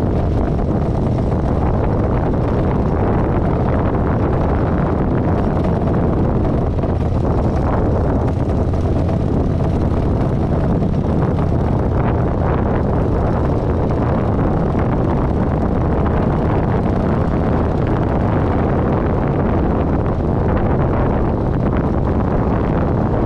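Kawasaki Vulcan 900's V-twin engine running steadily as the motorcycle rides along, with wind buffeting the microphone.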